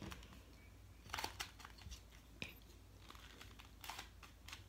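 Faint, irregular plastic clicks of a Pyramorphix puzzle being turned by hand, a little cluster about a second in and more near the end; the puzzle is stiff and hard to turn.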